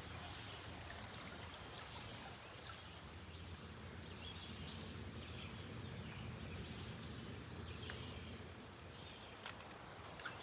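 Quiet riverside ambience: a steady low rumble, with faint bird chirps scattered through it and a couple of soft clicks near the end.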